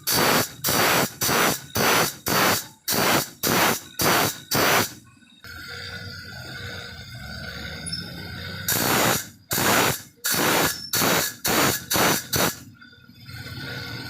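Steel file rasping across the teeth of a hand saw in short, even strokes, about two a second, with a pause of some three seconds in the middle.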